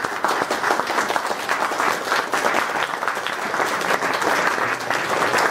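An audience applauding, many hands clapping together in a steady, continuous round.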